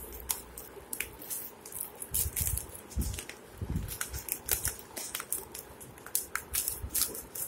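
Clear plastic wrapping crinkling and crackling in quick, irregular bursts as it is pulled and peeled off a fish-food pack by hand, with a few dull handling bumps between about two and four seconds in.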